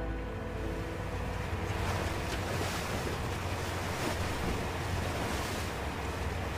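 Open-sea waves and wind as a small motorboat moves through choppy water, with a low steady drone underneath. The wash of the water grows louder through the middle.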